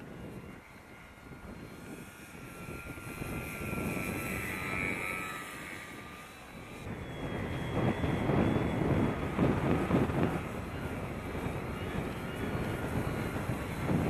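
Electric motor and propeller of a Dynam Pitts RC biplane whining in flight, loudest about five seconds in. From about halfway, gusty wind buffets the microphone with a louder, rough low rumble that covers the whine.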